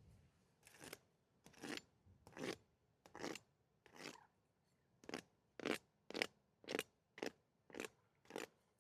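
About a dozen short, crisp crunching scrapes of crumbly 'mold tofu'. They come about every 0.8 s at first and close to twice a second in the second half.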